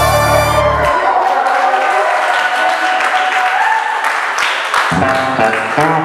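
A Cuban dance track ends about a second in, followed by a group of dancers clapping and cheering. New music comes in near the end.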